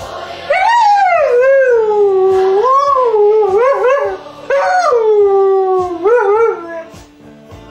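Siberian husky howling along to music: two long howls, each starting high and sliding down, breaking into short wavering rises and falls near the end. The first howl lasts about three and a half seconds, the second about two and a half.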